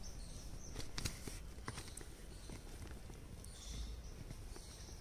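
Quiet outdoor ambience with scattered faint taps and clicks, like light footsteps on a garden path.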